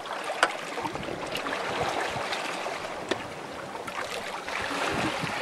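Sea water rushing past the stern of a sailing yacht under way, a steady hiss, with a few sharp clicks as a spanner works on the wind-steering gear's fittings.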